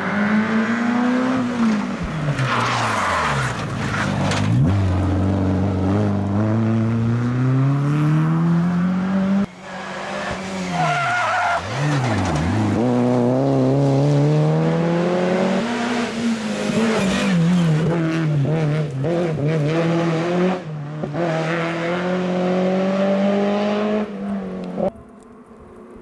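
Renault Clio RS N3 rally cars' 2.0-litre four-cylinder engines at full throttle. The engines rev hard up through the gears, then the pitch drops sharply as the cars lift and shift down for corners. Several cars pass in turn, with abrupt changes from one to the next.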